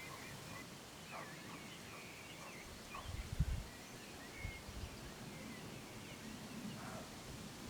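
Small birds chirping and twittering in short high calls. There are brief low rumbles about three seconds in, the loudest of them, and again at about four and a half seconds.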